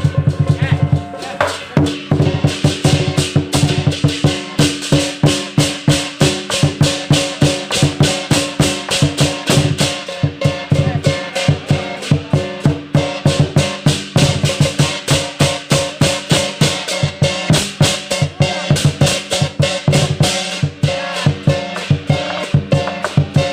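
Lion dance percussion: a large Chinese lion drum and hand cymbals playing a fast, even beat of about three strikes a second, with a short break in the pattern about a second in.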